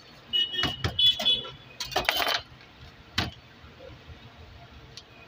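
A long knife slicing through a crisp grilled sandwich on a paper plate, with a few crunching cuts and a single sharp knock about three seconds in.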